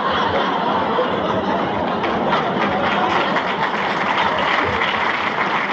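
Audience laughing and applauding.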